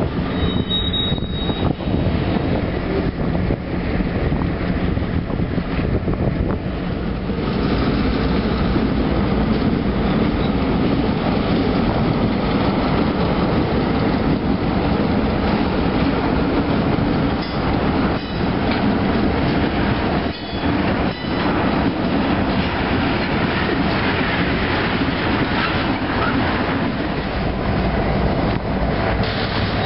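Iowa Interstate Railroad freight train passing close by: two diesel locomotives run past, then tank cars roll by with steady wheel noise and a few clanks over the rail joints.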